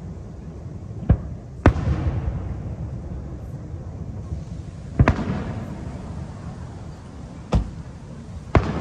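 Aerial firework shells bursting, about five sharp bangs at uneven intervals. The bigger ones trail off in a rolling rumble.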